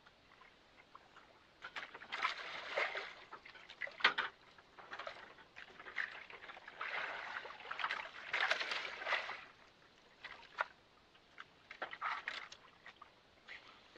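Sea water sloshing and splashing against the side of a small boat in irregular washes, with a few sharp clicks between them.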